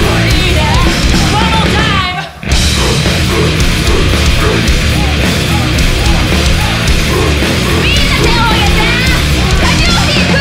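Live heavy metal band playing loud distorted guitars, bass and drums, with high gliding notes over the top. The whole band stops dead for a moment about two seconds in, then crashes back in.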